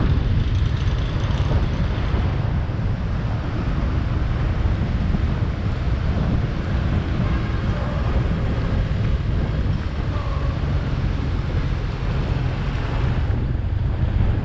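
Wind buffeting the microphone on a moving motorcycle, mixed with the bike's running engine and road noise as a steady rush.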